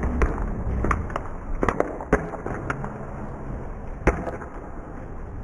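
Paintball markers firing: scattered sharp pops at irregular intervals, about eight in all, the loudest about four seconds in, over a low rumble.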